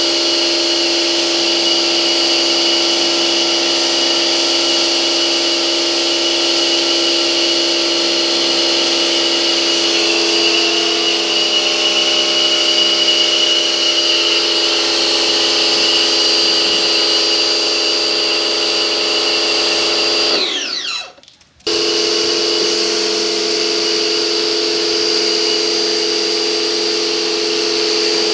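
Pressure washer running, a steady motor whine over the hiss of the water spray. About two-thirds of the way through, the motor winds down and the sound drops out for about a second, then it is running again.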